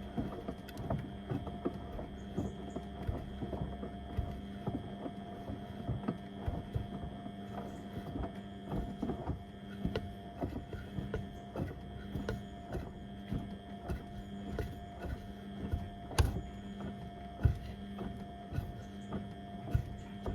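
Beko WM74135 washing machine washing a load of door mats: a steady motor hum under irregular thumps, about one a second, as the drum turns the heavy mats, with one sharper knock about sixteen seconds in.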